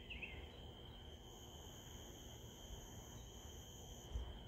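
Night insects trilling in one steady high drone, with a second, higher insect buzz joining about a second in and stopping near the end. A few bird chirps sound right at the start, and a short low thump comes near the end.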